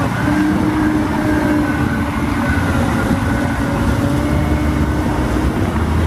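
Caterpillar 992-series wheel loader's diesel engine running steadily under load, with a steady whining tone over the engine noise.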